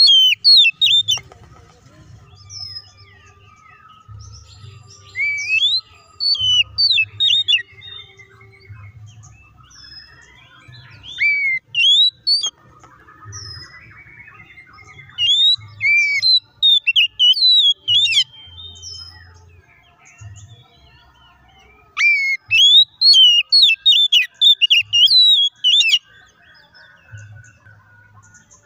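Oriental magpie-robin singing: phrases of loud, sharp, quickly rising and falling whistled notes, separated by pauses, with the longest and densest phrase near the end. A faint low rumble comes and goes underneath.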